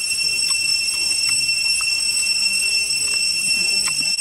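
Steady high-pitched insect drone in the forest, one unbroken tone with overtones, with a few faint clicks from handling the food.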